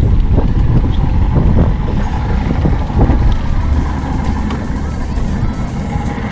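Wind buffeting the microphone in a steady low rumble, over choppy sea water moving around a small boat.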